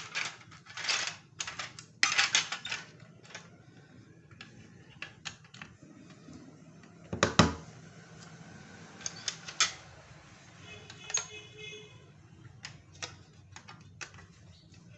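Plastic toy train track pieces being handled and clicked together: a run of sharp plastic clicks and rattles, with one heavier knock about seven seconds in and a brief faint pitched tone near eleven seconds.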